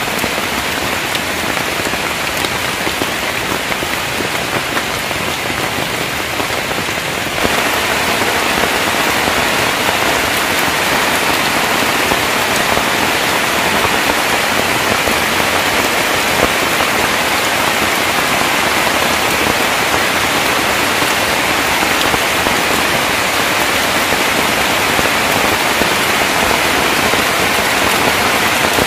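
Heavy rain falling in a steady downpour, heard from under a thatched roof. It grows a little louder about seven seconds in.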